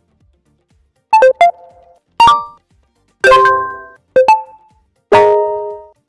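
A phone's built-in notification alert tones previewed one after another: five short electronic chimes about a second apart, each a couple of notes or a chord that fades out. They start about a second in.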